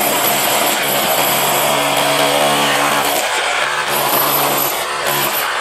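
Bosch GBH 187-LI 18 V cordless rotary hammer chiselling into a concrete block: a loud, steady hammering drone with a brief let-up about three seconds in.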